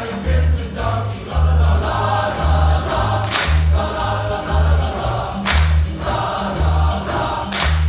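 School choir singing with a band accompaniment: a steady pulsing bass beat under the voices, with a short cymbal-like hit about every two seconds.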